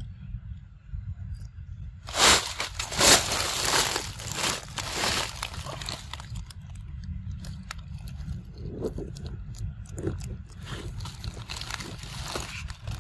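Crackling and rustling right at the microphone, loudest in bursts about two to three seconds in, with scattered clicks and more rustling near the end. Underneath is a steady low rumble.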